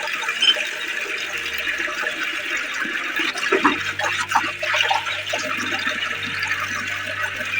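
Water rushing steadily through a tap. About three and a half seconds in, a low steady hum joins it, the kind of noise a tap makes while water runs through it.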